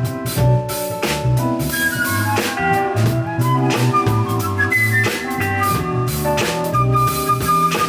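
A live jazz band playing, with a drum kit keeping a steady beat under a bass line and sustained melodic notes.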